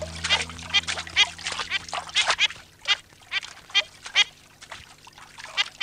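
Cartoon duckling quacking loudly and repeatedly: a quick string of short, high-pitched quacks, about two to three a second.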